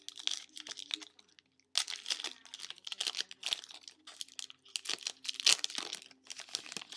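Trading card pack being torn open, its wrapper crinkling and tearing in irregular bursts, with a short pause about a second in.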